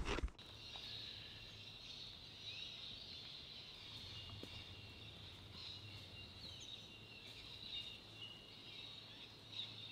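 Faint outdoor ambience: a steady high-pitched insect chorus, with a few short bird chirps over a low steady hum.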